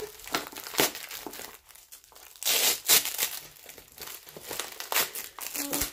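Plastic bubble wrap crinkling and rustling as it is handled and pulled apart, in irregular crackling bursts, the loudest about two and a half to three seconds in.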